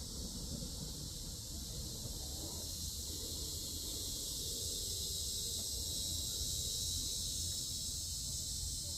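A steady, high-pitched insect chorus, with a low rumble of wind on the microphone beneath it.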